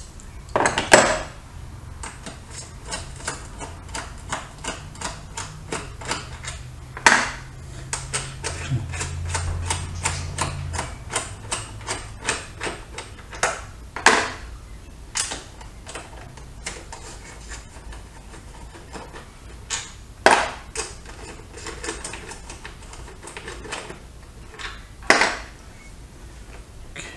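Socket ratchet clicking in long runs of a few clicks a second as bolts are backed out, with about five louder metal knocks of tools and parts scattered through.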